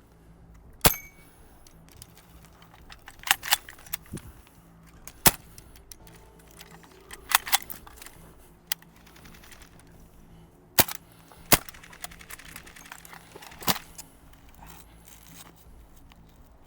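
Airsoft gunfire: about ten sharp single shots spread irregularly, a couple of them in quick pairs. Typical of gas-blowback airsoft guns in a skirmish game.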